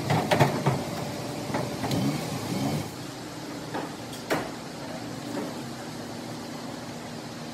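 PVC pipes knocking against each other and against hard surfaces as they are handled: a few quick knocks in the first second and one sharp knock about four seconds in, over a steady hiss.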